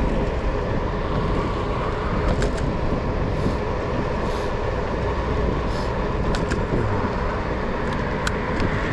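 Wind rushing over the microphone and tyre rumble on asphalt from an electric scooter moving at about 23 km/h, a steady noise with a few light clicks.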